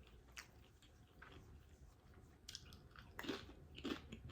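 Faint close-up chewing of smoked sausage: a few soft, wet mouth clicks, a little louder near the end.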